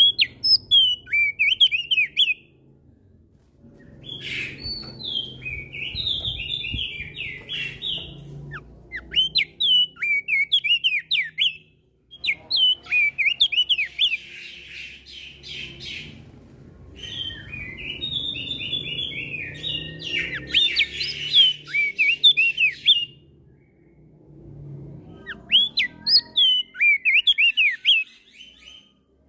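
Opior jambul (crested darkeye) song: rapid strings of sharp, gliding chirped notes in repeated bursts of a second or two with short pauses between, answered back and forth by other birds.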